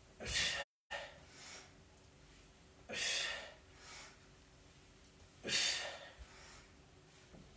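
A man's forceful exhalations, one about every two and a half seconds, as he curls up in weighted crunches, with fainter breaths between them. The sound cuts out completely for a moment just under a second in.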